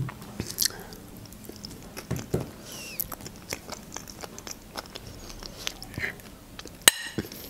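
Close-up mouth sounds of someone chewing soft food: small wet smacks and clicks. Near the end there is one sharp click, a fork against a ceramic plate.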